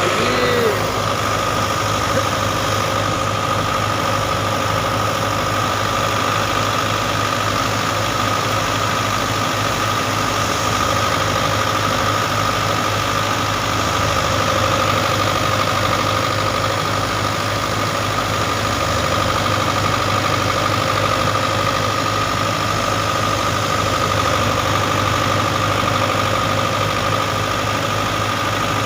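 A farm machine's engine running steadily at one speed, with a constant high whine over a fast, even low throb.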